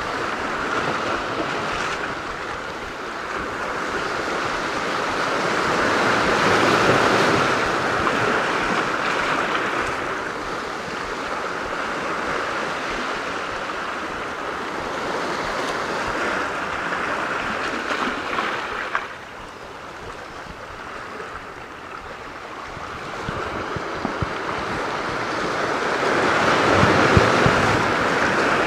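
Sea waves breaking and washing over shoreline rocks, swelling and ebbing, loudest about seven seconds in and again near the end, with wind buffeting the microphone.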